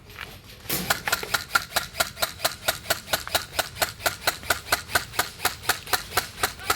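Airsoft gun firing a rapid string of single shots, about five a second, starting about a second in and running on evenly.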